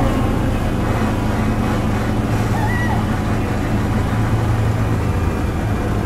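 Casey Jr. Circus Train ride in motion: a steady low drone from the locomotive with the rumble of the cars rolling on the track.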